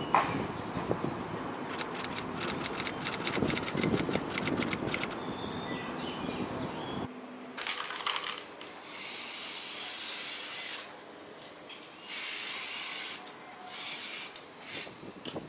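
Aerosol spray paint can spraying onto a metal table frame in short hissing bursts, several in a row, the longest about two seconds. Before that, outdoor background noise with a quick run of sharp clicks.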